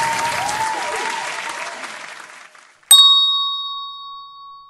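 Applause fading out, then a single hand-bell ding about three seconds in, ringing clearly and dying away over a couple of seconds.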